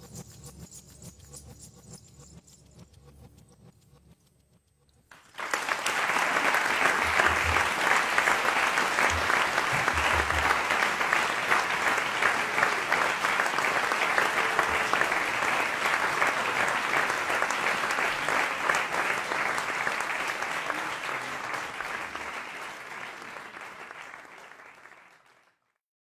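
A few seconds of faint sound dying away, then a concert audience breaks into applause about five seconds in. The clapping runs steady and dense, thins out near the end and then cuts off.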